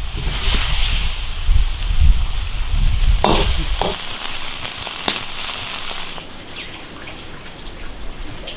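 Eggplant and pork cracklings sizzling in an iron wok as the sauce cooks down. A metal spatula scrapes and rings against the wok about three seconds in, and there is a sharp click a couple of seconds later.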